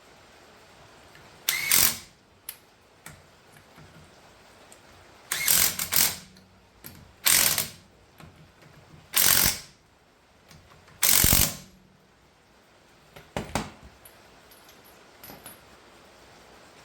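Ratchet wrench tightening a car wheel's lug nuts, clicking in about six separate bursts of half a second to a second each, with a few fainter clicks near the end.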